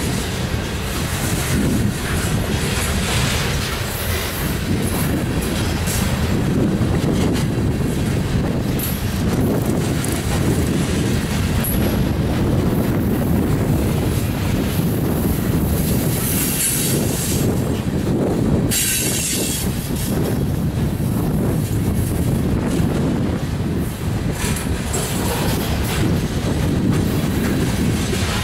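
Loaded coal hopper cars rolling past close by: a steady rumble of steel wheels on the rail, with scattered clicks from the wheels and rail joints. A high squeal from the wheels comes and goes at moments.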